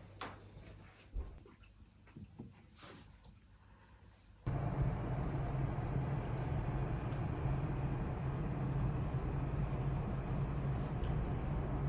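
Crickets chirping in a steady series of short, high pulses, about two a second. About four and a half seconds in, a steady low hum and a louder background hiss come in suddenly under the chirping.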